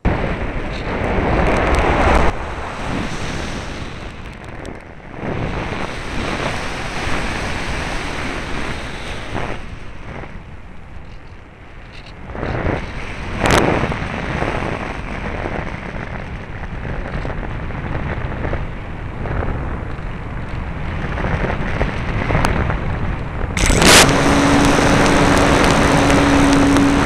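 Airflow rushing and buffeting over the onboard camera's microphone as the ParkZone Radian electric motor glider flies, a gusty hiss that rises and falls. Near the end the rush gets louder and a steady hum starts up: the glider's electric motor and propeller running.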